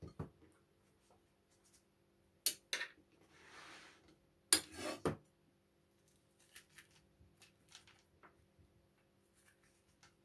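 A metal tablespoon scraping seeds and stringy pulp out of a halved butternut squash: two sharp clacks about two and a half seconds in, a soft rasping scrape, then a louder cluster of scrapes near the middle and faint scratching after.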